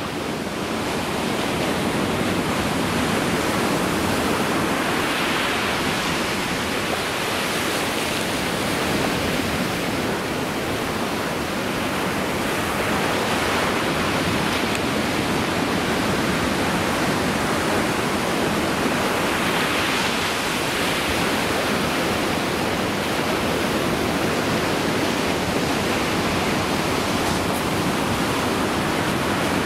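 Ocean surf breaking on a sandy beach: a steady wash of waves that swells louder every several seconds as a wave breaks.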